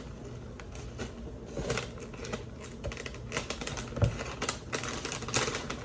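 Light, irregular clicks and taps of kitchen handling at a counter, with a duller knock about four seconds in.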